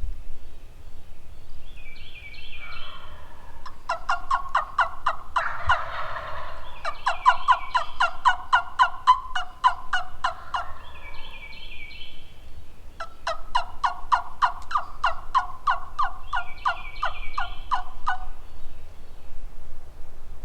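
Turkeys calling: two long runs of rapid, evenly spaced sharp notes, the first starting about four seconds in with a louder rattling burst near its start, the second starting past the middle.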